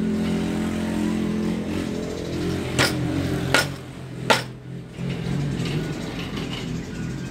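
A steady engine hum that drops away about four seconds in. Over it come three sharp knocks of a cleaver on a wooden chopping board, less than a second apart.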